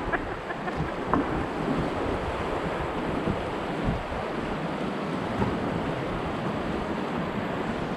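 River current rushing and churning around a raft in a rocky whitewater canyon, a steady wash of water noise, with some wind buffeting the microphone.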